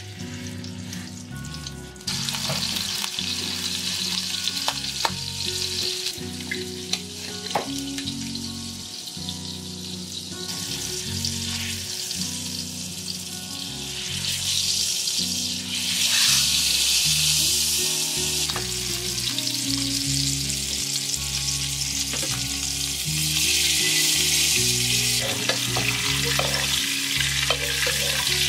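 Duck breast sizzling in hot oil in a frying pan. The sizzle starts abruptly about two seconds in and swells louder twice later on, with occasional light clicks of tongs and a spoon against the pan.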